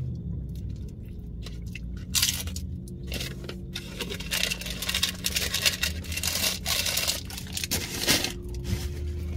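Paper fast-food wrappers and packaging rustling and crinkling as they are handled, with chewing and the clink of metal bangles, in many short irregular crackles from about two seconds in. A low steady hum runs underneath.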